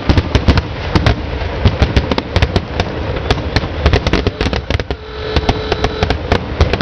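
Fireworks finale: a dense, rapid string of aerial shell bursts, sharp bangs coming several times a second with crackle between them. A brief steady whistle sounds about five seconds in.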